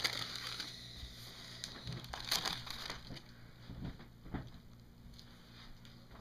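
Paper crinkling and crackling as it is handled. It is loudest at the start and again about two seconds in, then turns to fainter scattered crackles.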